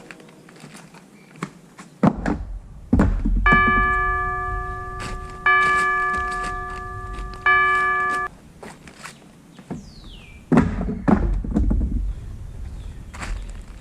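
A bell-like chime strikes three times, about two seconds apart. Each strike rings with a clear tone and overtones, and the ringing cuts off sharply after the third. Before and after the chimes come heavy thunks and knocks over a low rumble.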